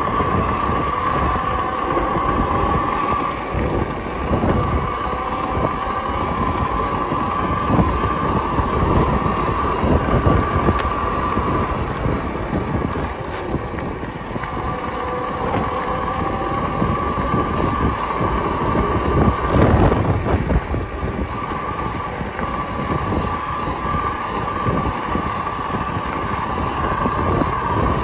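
Talaria electric dirt bike riding along a gravel path: a steady high motor whine over a constant rumble of tyres on gravel. The whine fades out twice for a few seconds, about a quarter of the way in and again near the middle, then comes back.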